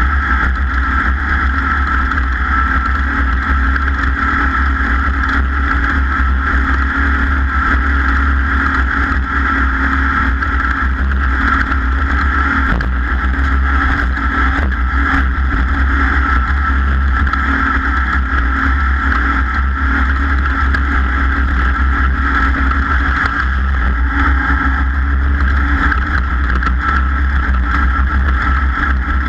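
A racing vehicle's engine running hard at a steady pitch, held at speed, with a heavy low rumble underneath.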